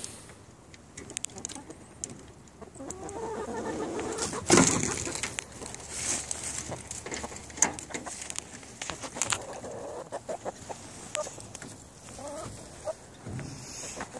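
Chickens clucking, in short repeated calls, with scattered clicks and knocks and one loud bump about four and a half seconds in.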